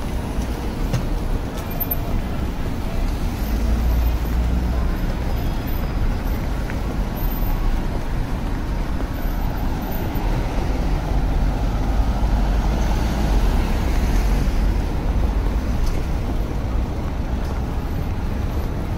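City street traffic noise: a steady low rumble, with a vehicle passing about thirteen to fifteen seconds in.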